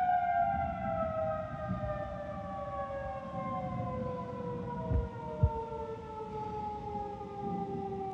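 Federal Signal 2001-130 outdoor warning siren winding down, its single tone falling steadily in pitch as the rotor slows after the storm warning signal is shut off. Two brief low thumps about five seconds in.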